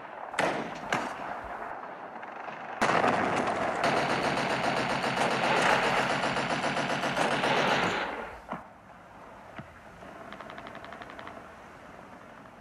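Gunfire: a couple of single shots, then a long continuous machine-gun burst of about five seconds that stops about eight seconds in. It is followed by a fainter, shorter rattle of fire.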